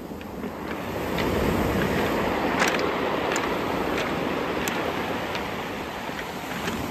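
Surf washing up a cobble beach: a steady rushing wash that swells about a second in and slowly eases. Sharp clicks of rounded stones knocking together are scattered through it.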